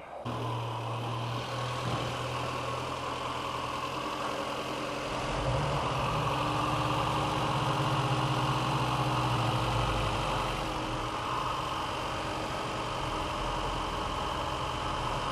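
VW Rabbit (A1) CIS-Lambda fuel-injected four-cylinder engine idling. It gets louder about five seconds in and eases back about ten seconds in, a fluctuating idle as the oxygen sensor comes online and the mixture is corrected.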